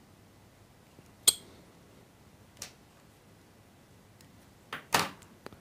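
Small metal fly-tying tools clicking and tapping: one sharp click about a second in, a faint click a little later, and a quick cluster of taps near the end.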